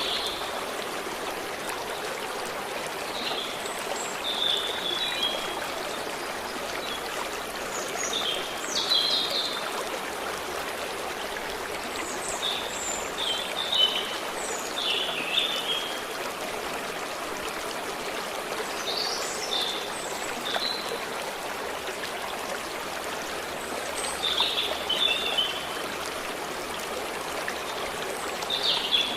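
Steady rush of a forest stream flowing over stones, with small birds singing short chirping phrases every few seconds above it.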